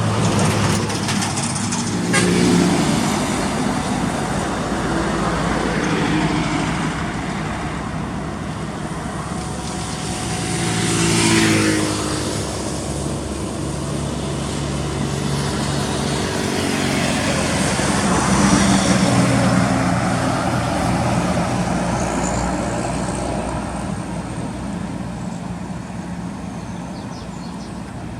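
Heavy diesel trucks passing one after another on a highway, their engine notes swelling as each goes by. The loudest passes about eleven seconds in, its engine note falling in pitch as it goes past.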